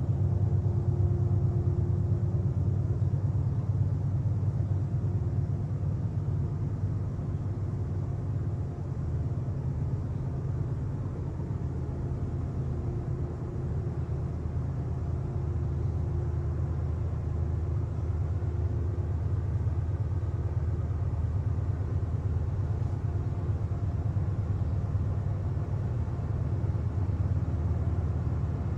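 Diesel freight locomotives working hard as they haul a heavy train up a grade: a steady low engine rumble with a droning tone held throughout.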